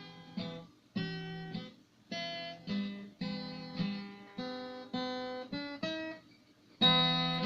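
Acoustic guitar intro to a bard song: a run of strummed chords, one roughly every half second to second, with a short pause and then a louder chord near the end.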